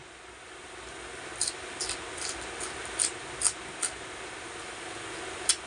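Raw winged bean (sigarilyas) pods being bitten and chewed, a series of short crisp crunches at irregular intervals, over a steady hiss.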